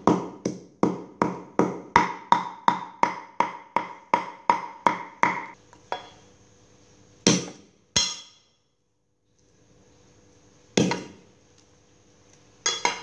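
Steel cleaver chopping pork mince on a thick wooden chopping board, an even rhythm of sharp knocks at nearly three a second for about five seconds. A few separate knocks follow.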